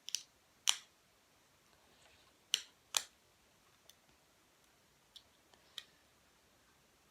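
Sharp clicks and taps of small hard fingerboard parts being handled: four loud ones in the first three seconds, then a few fainter ones.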